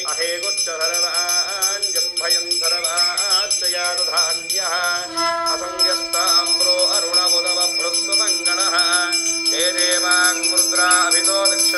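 Devotional Hindu music: a voice sings wavering melodic lines over continuous ringing bells, and a steady held note joins about five seconds in.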